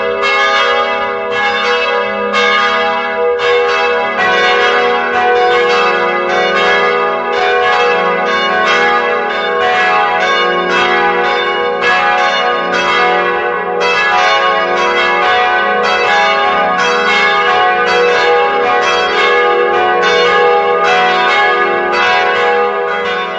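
Church bells ringing continuously, strikes following one another about twice a second with their ringing tones overlapping.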